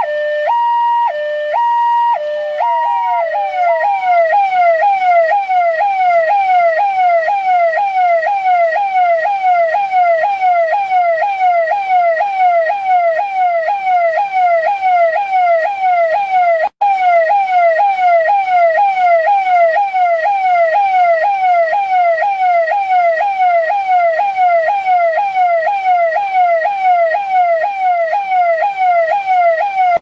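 Electronic police siren of a Delhi Police vehicle, first alternating between two tones, then about three seconds in switching to a fast yelp: repeated quick falling sweeps, about two and a half a second. It cuts out for an instant about halfway through.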